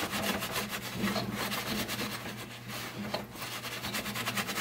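Paper towel rubbed and scrubbed quickly back and forth against the metal inside of a 1976 Bally pinball machine's chime box, dusting it out.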